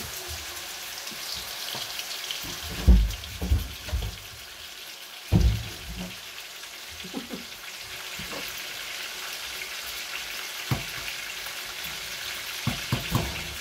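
Raw chicken pieces frying in hot oil in a karahi: a steady sizzling hiss, with a few dull knocks as pieces go into the pan, the loudest about three and five seconds in.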